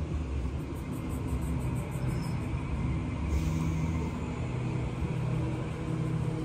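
Sydney Trains Waratah (A set) electric train pulling into the platform and slowing to a stop, with a steady low rumble and hum from the train. A brief hiss comes about halfway through.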